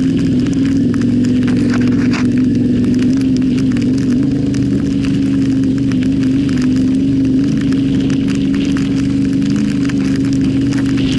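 Yamaha Ténéré 700's parallel-twin engine running at a nearly steady pitch while riding off-road, with a slight wavering of the note about two seconds in. Many small clicks and crackles sound over the engine note.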